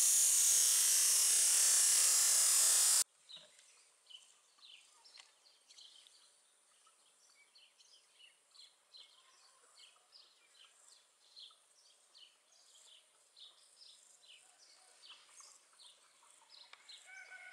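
A high-pressure washer jet hisses loudly as it hits a plastic Coca-Cola bottle, then cuts off abruptly about three seconds in. After that, faint birds chirp in many short, high calls.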